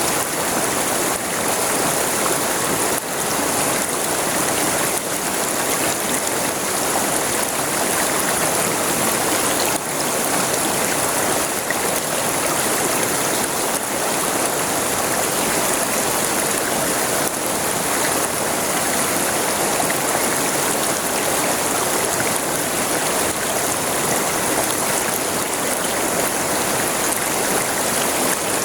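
A river flowing over its bed, a steady rushing and babbling of water with no pauses.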